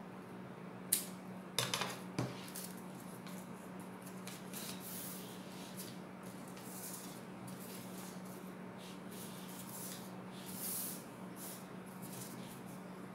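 Scissors snipping paper with a few sharp clicks in the first couple of seconds, then soft paper rustling as the cut paper pieces are unfolded and handled. A low steady hum runs underneath.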